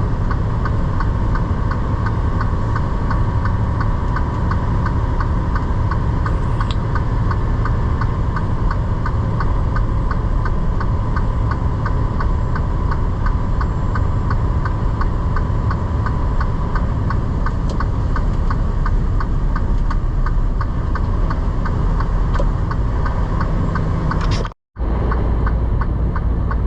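Inside a semi-truck cab while driving: steady engine and road rumble with a fast, regular ticking running through it. The sound cuts out for an instant near the end.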